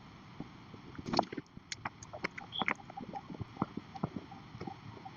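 Handling noise as a laptop bag is opened and rummaged through: irregular light clicks, taps and rustles, a little louder about a second in.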